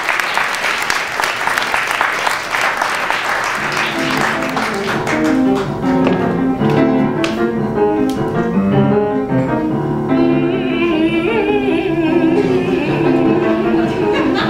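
Audience applause dies away over the first few seconds. About four seconds in, a grand piano starts playing a moving line of chords and notes that runs on as the introduction to the next song.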